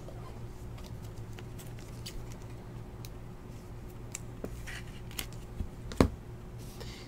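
Faint handling noises of trading cards and packs: scattered light clicks and rustles over a steady low hum, with one sharper click about six seconds in.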